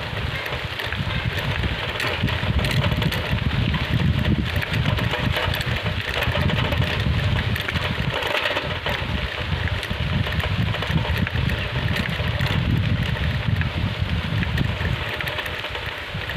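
Riding a bicycle along a dirt forest track, heard from the rider's handheld phone: wind buffeting the microphone as an uneven low rumble, over a steady rushing hiss of the ride.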